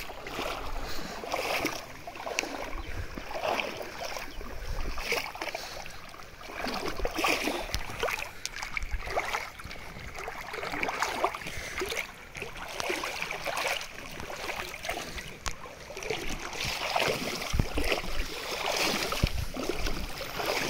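Feet and legs wading through shallow river water, a slosh and splash with each step, roughly one step a second.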